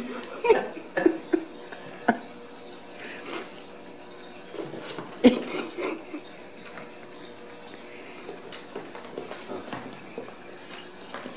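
Kittens playing on a tile floor: scattered knocks and clatters of paws and toys, the sharpest about five seconds in, over a steady hiss.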